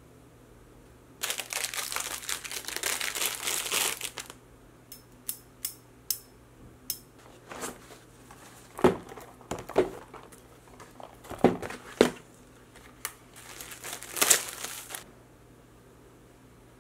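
Packaging crinkling and rustling as a parcel of clothes is unpacked: a long spell of crinkling about a second in, then a run of sharp little ticks, a few handling knocks, and another spell of crinkling near the end.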